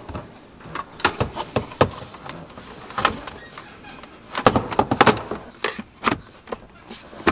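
Plastic center console trim being fitted back into a Ford Mustang's interior around a raised e-brake lever: a string of irregular clicks, knocks and plastic rattles.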